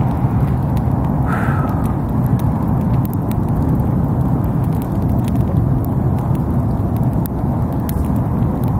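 Wood campfire crackling, with scattered sharp pops and snaps over a steady low rumble.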